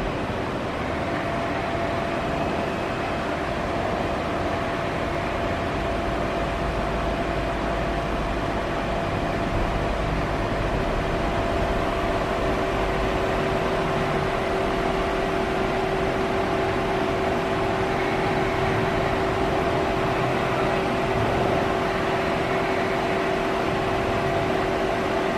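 Steady machine hum with a constant whine: a Citizen M32 Swiss-type CNC automatic lathe powered up and idling, with no cutting.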